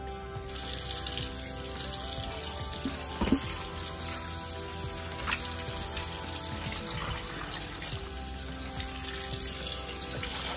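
Kitchen tap running into a bowl of raw whole shrimp in a sink, the water splashing as hands rub and rinse the shrimp; the flow starts about half a second in.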